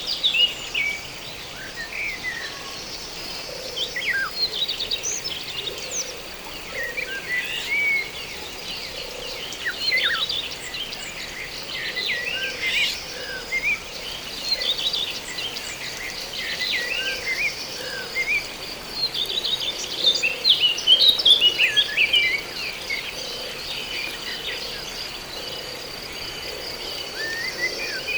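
Many birds chirping and twittering over the steady high trill of insects, with faint low frog calls repeating about once a second.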